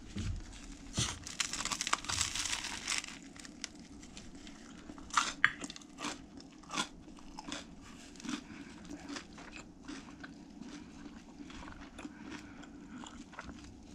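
Close-up biting and chewing of a toasted English muffin breakfast sandwich: a crisp crunch of the bite in the first few seconds, then scattered crunchy chewing.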